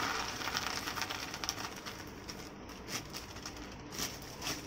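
Dry soya chunks tipped from a plastic bag into a steel bowl of water: a soft splashing and bag crinkle, loudest at first and dying away, with a few light clicks as the chunks settle.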